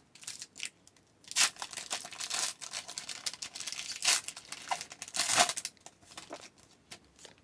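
A trading card pack's wrapper torn open and crinkled in the hands, a few sharp rips among irregular rustling.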